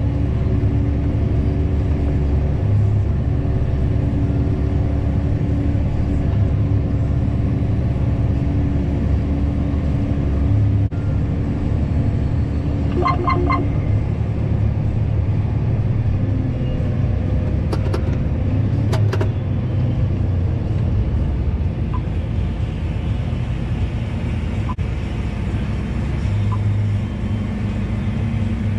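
Tractor engine running steadily under load, heard from inside the cab while it pulls a grain cart down the road, with a low, even rumble. Partway through comes a short run of electronic beeps, and a few clicks follow a few seconds later.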